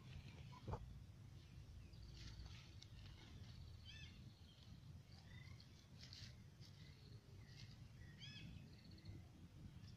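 Faint birdsong: scattered short chirps and quick twittering trills from small birds, over a low steady background rumble.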